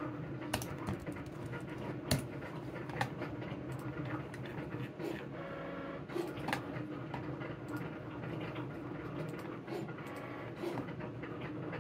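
A desktop sticker-making machine at work: a steady motor hum with a brief whirring run about five to six seconds in, and scattered light clicks.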